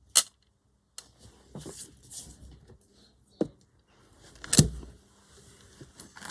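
Paper and small craft pieces handled on a tabletop: soft rustling with three sharp knocks or taps, the loudest a little past halfway.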